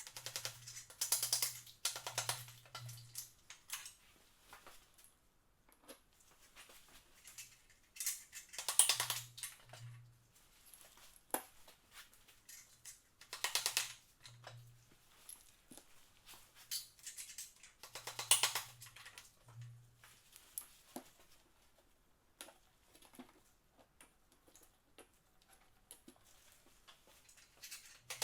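Impact wrench loosening engine bolts in four short bursts, each a second or two of rapid hammering over a motor hum, with faint clinks of metal parts in between.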